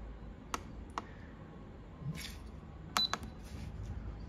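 Control buttons on an electric natto maker being pressed: a few light clicks. About three seconds in comes a louder click with a short high beep from the machine as the steaming programme is selected.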